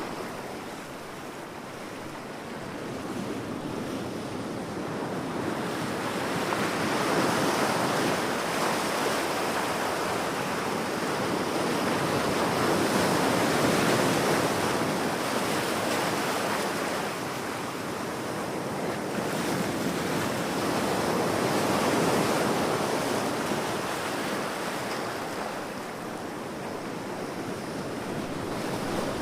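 Waves breaking on a beach: a steady wash of surf that swells and falls back slowly, several seconds to each swell.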